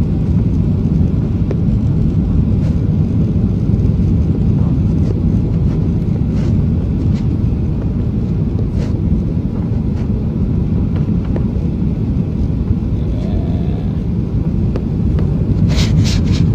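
Jet airliner cabin noise on final approach, heard from a window seat over the wing: a steady low rumble of the engines and airflow with the flaps down. A few sharp clicks come near the end.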